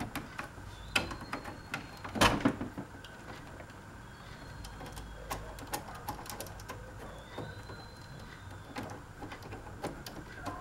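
Scattered clicks and knocks of hands handling parts inside an open desktop computer case, around the expansion-card slots, with the loudest cluster of knocks about two seconds in.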